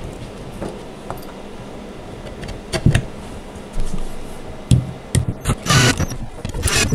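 Screws and wooden cradle parts handled with light clicks and knocks, then a cordless drill driving a screw into the wooden cradle's end panel in two short runs near the end.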